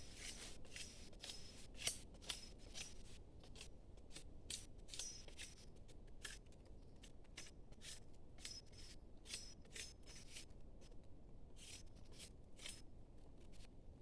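A faint, irregular series of short crisp clicks or snips, several a second.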